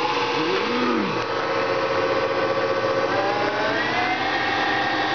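Alternator bench tester's electric motor belt-driving a 200-amp alternator, running with a steady whine that climbs in pitch about three seconds in and then holds level as the machine comes up to about 700 rpm idle speed.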